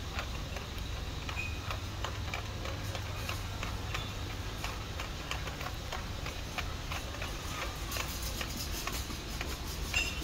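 Supermarket ambience: a steady low hum under a string of light, irregular clicks and ticks, several a second, with a couple of short high tones about a second and a half in and near the end.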